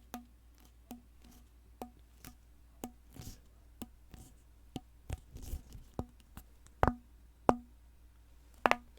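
Close-miked tapping on a hollow object, about two taps a second, each with a short hollow ring; a few taps near the end are much louder.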